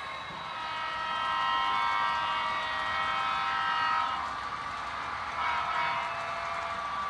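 HO scale model diesel locomotive's sound-decoder horn blowing a chord of several tones: one long blast, then a shorter one about five and a half seconds in.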